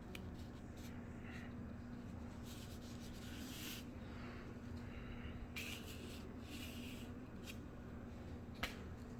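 Hands handling objects: a series of rubbing and scraping strokes with a sharp click a little before the end, over a faint low steady hum.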